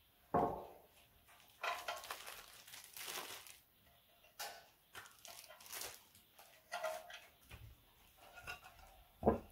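Clear plastic bag crinkling and rustling in irregular bursts as it is handled and opened, with a short thump just after the start and a sharp knock near the end.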